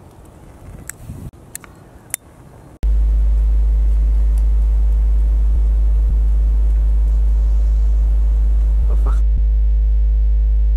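A few faint clicks, then a sudden, loud, steady low electronic hum starting about three seconds in. Near the end it turns buzzier, with many evenly spaced overtones.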